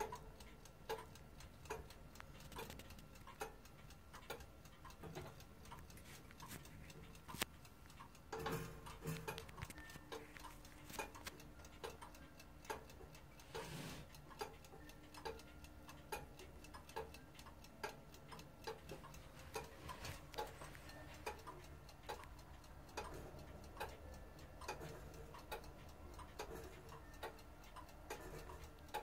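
Comtoise clock ticking steadily, its escapement beating evenly as the lyre pendulum swings. The ticking is faint, with a few louder knocks about a third of the way through and again about halfway.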